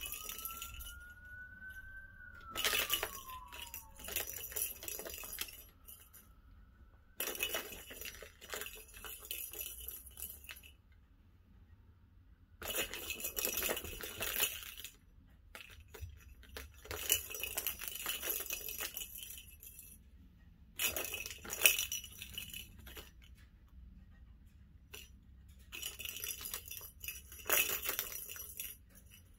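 Small plastic balls rattling and clinking as they roll around the tracks of a plastic tower ball-track cat toy, swatted by a kitten. The sound comes in about six bursts of a couple of seconds each, with short pauses between.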